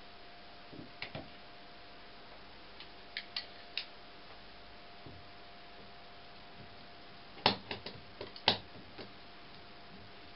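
Sharp clicks and clacks of a one-handed quick-release bar clamp being set on a glue-up and its trigger squeezed to tighten and apply clamping pressure. A few scattered clicks come in the first four seconds, then a quick run of louder clicks from about seven to nine seconds in, over a faint steady hum.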